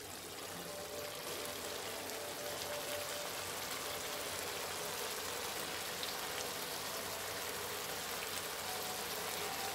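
Methi chicken curry sizzling and bubbling in a pan, a steady crackling hiss. The gravy is cooking down until the oil separates, the sign that the dish is done.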